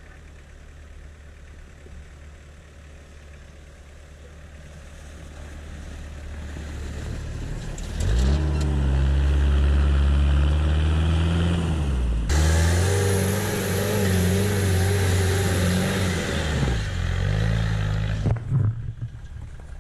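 Off-road 4x4 truck engine revving hard under load, its pitch rising and falling with the throttle. It grows louder over the first few seconds, is loudest from about eight seconds in, and drops away near the end.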